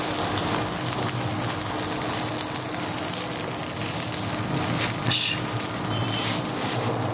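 Slices of white bread sizzling steadily as they toast in a hot, butter-greased frying pan, with a brief sharper sound about five seconds in.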